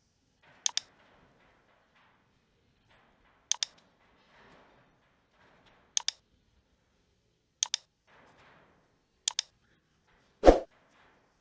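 Computer mouse clicking: five pairs of quick sharp clicks spaced a couple of seconds apart, with faint scuffling between them, then a single louder thump near the end.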